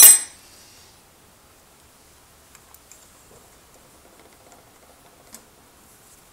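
A sharp metallic clink with a brief high ring as a chuck key is worked in a lathe's three-jaw chuck, then faint scattered light ticks and clicks of metal being handled as a small part is set in the jaws.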